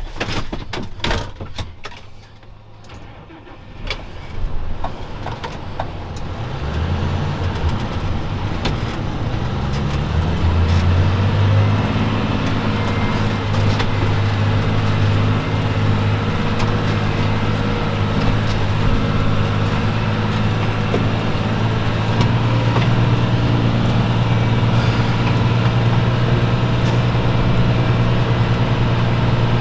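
A few sharp knocks, then a vehicle engine comes up about six seconds in, its revs climbing over several seconds before it settles into a steady running note.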